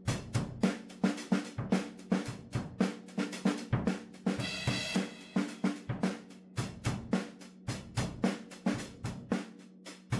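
Stagg acoustic drum kit played in a steady beat of bass drum, snare and hi-hat, with a cymbal crash about four and a half seconds in.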